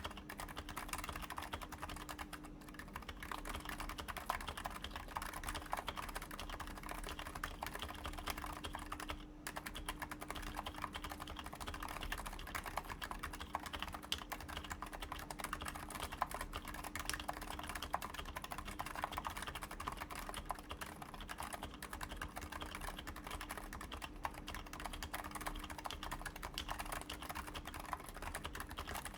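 Continuous typing on a Topre Realforce 87u in a Digilog case with 55g Topre switches, lubed and silenced with purple sliders, fitted with URSA PBT doubleshot keycaps: a dense, even stream of keystrokes, with brief pauses about two and a half and nine seconds in.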